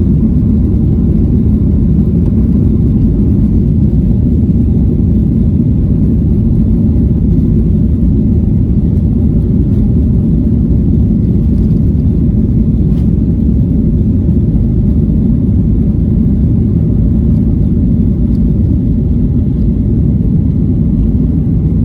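Steady low rumble of a passenger jet's cabin: engine and airflow noise, unchanging throughout.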